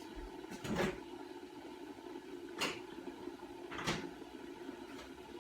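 Three knocks, about a second in, around two and a half seconds and near four seconds, as from a fridge or cupboard door and a milk carton being handled and set down. Under them runs the steady hum of an electric kettle heating water.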